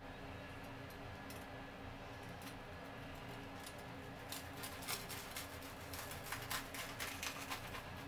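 Kitchen knife sawing down through a toasted sandwich on a wooden cutting board: from about halfway through, the toast crust crunches in a quick run of crisp crackles. A low steady hum lies underneath.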